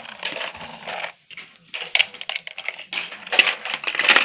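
Plastic building blocks clattering and knocking as a plastic toy truck is pushed into them across a hard floor, with a scraping rustle and several sharp knocks, the loudest near the end.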